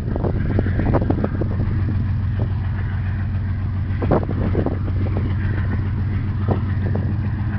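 Steady low drone of a pusher tug's diesel engines as the tug and barge pass, with a few short knocks over it, the sharpest about four seconds in.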